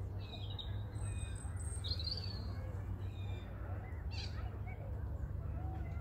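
Small birds chirping in a series of short, high phrases, with one sharper call a little after four seconds in, over a steady low background rumble.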